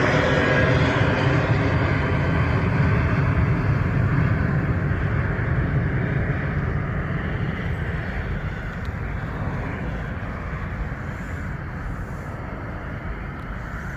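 Boeing 737-700's twin CFM56-7B turbofan engines at departure thrust: a deep jet rumble that fades steadily as the airliner departs.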